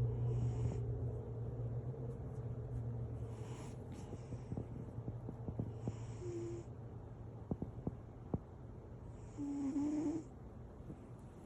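Domestic cat snoring in its sleep: a low steady rumble with a hissy breath about every three seconds.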